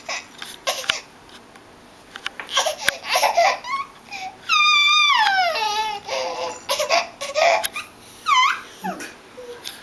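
A baby squealing and babbling. About halfway through comes a long, loud, high squeal that slides down in pitch, and near the end a short rising squeal. A few sharp hand claps sound in between.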